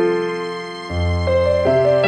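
Soft background music led by electric piano, slow sustained chords with a new low bass note about a second in.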